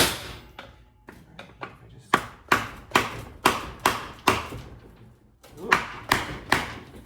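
Repeated hammer blows on an NP242 transfer case's aluminium case, tapping the two halves apart to break the sealant between them. One hard blow comes at the start, then a steady run of sharp strikes about two a second, and three more near the end.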